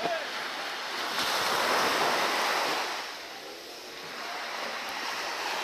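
Small waves breaking and washing up a sandy beach. One surge swells for about two seconds and fades, and another builds near the end.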